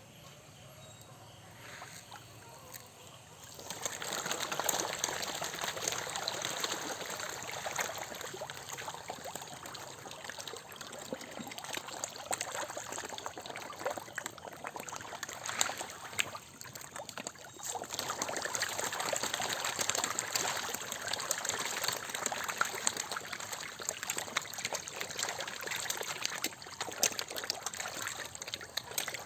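Running water trickling and splashing, starting about four seconds in and going on steadily, with many small crackling splashes.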